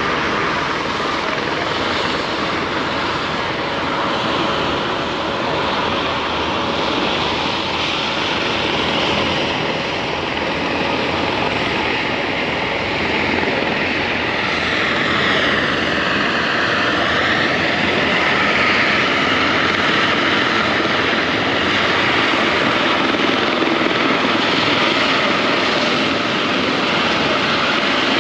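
Steady noise of a passenger ferry underway, heard from its open deck: engine drone mixed with rushing wind and water.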